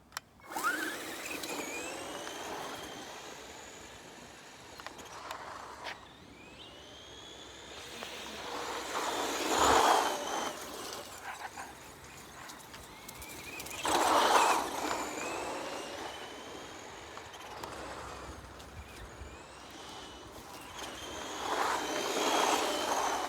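RC car's electric motor whining up and down in pitch as the car speeds up and slows, with tyre noise. It swells loudest three times: about ten seconds in, about fourteen seconds in, and near the end.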